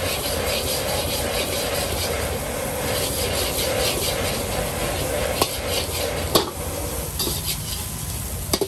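Food sizzling in a hot pan while a metal spatula stirs and scrapes it in repeated strokes. There are two sharp metal knocks in the second half.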